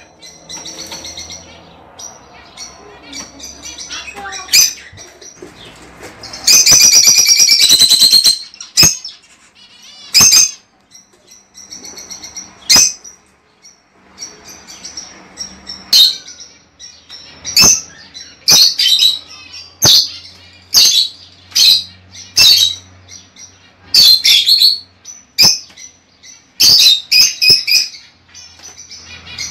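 Lovebirds chattering with sharp, high chirps and squawks. A longer, harsh screeching call comes about six to eight seconds in. The chirps come thick and fast through the second half.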